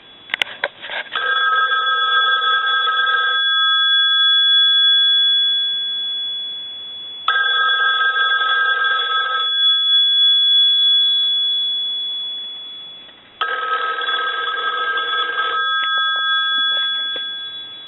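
A Western Electric single-slot rotary payphone's ringer bells ringing three times as a test ring, each ring about two seconds long and the bells ringing on and fading away in the gaps, repeating about every six seconds. A few clicks come in the first second.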